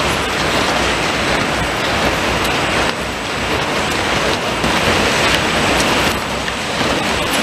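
Shrink-wrap packaging line with a flighted infeed conveyor running: a steady, even rush of machine noise with a few faint ticks.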